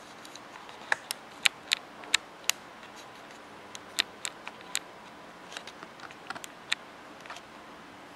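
Alcatroz Xplorer Dock 2 Bluetooth keyboard being clicked: a string of sharp clicks at uneven intervals, in loose clusters, from about a second in until near the end.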